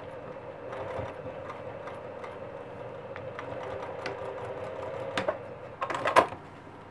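Juki sewing machine running at slow speed, stitching a seam across the corner of a bag through several thick layers of vinyl and fabric. The stitching stops about five seconds in, followed by a few sharp clicks.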